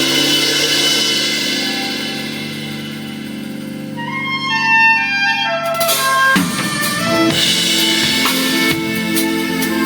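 Instrumental music with sustained wind-like tones and a descending run of notes. A drum kit with crashing cymbals comes in about six seconds in and plays on with the band.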